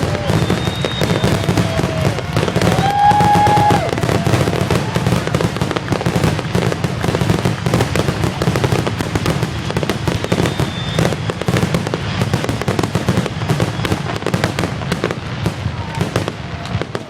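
Fireworks display: a dense, continuous barrage of crackles and bangs over a steady low rumble.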